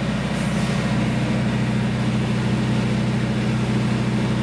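Foam-injection equipment running steadily with a low engine hum over a steady hiss, while polyurethane foam is pumped under the concrete slab to lift it.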